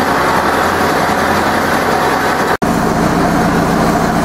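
Zetor 7245 tractor's four-cylinder diesel engine running steadily shortly after a cold start, having stood for about six weeks. The sound cuts out for an instant about two-thirds of the way through, then the engine carries on.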